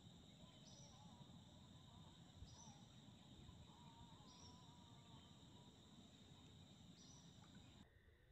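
Near silence: a faint, steady high insect drone, with a short high chirp repeating about every second and a half and a low rumble underneath. The drone changes abruptly near the end.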